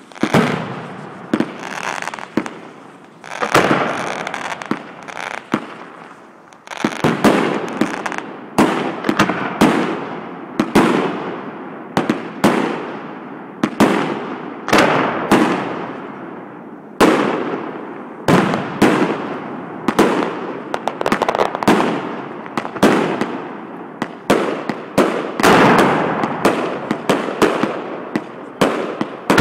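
Aerial fireworks going off in quick succession: sharp bangs one to two a second, each trailing off in an echo.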